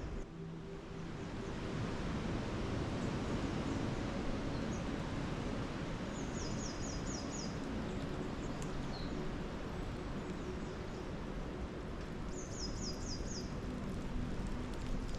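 Steady rushing forest ambience, wind through the trees, with a small songbird singing a quick run of about five high notes twice, about six and twelve seconds in.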